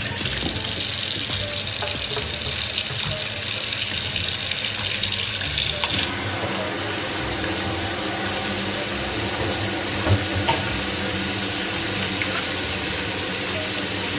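Kitchen faucet running steadily into a stainless steel sink, filling it with water. There are a couple of light knocks about ten seconds in.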